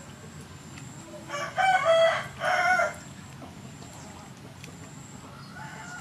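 A rooster crows once, a loud pitched call of about a second and a half in a few linked segments, starting about a second in.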